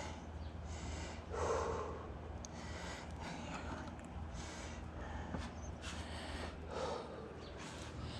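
A person breathing heavily close to the microphone: a run of short, noisy breaths about once a second, strongest about one and a half seconds in and near the seven-second mark.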